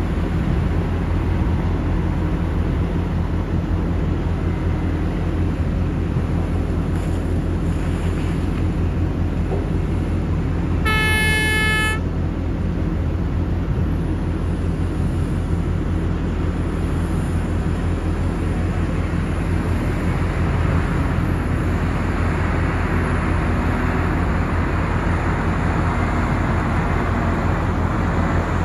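Heavy diesel engines of a Cat 6020 hydraulic mining shovel and a haul truck running in a steady low drone while coal is loaded. About eleven seconds in, a horn sounds once for about a second.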